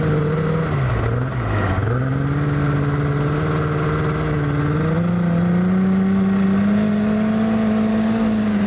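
Yamaha snowmobile engine running under throttle while the sled rides across snow. Its pitch dips briefly about a second in, climbs again, then rises around five seconds in and holds higher as the rider accelerates.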